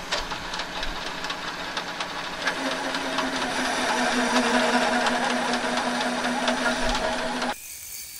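Metal lathe running with the chuck turning and a cutting tool taking a light cut off a water pump impeller's face, with a steady mechanical hum and fine ticking. A steady tone joins in about two and a half seconds in, and the sound drops off abruptly near the end.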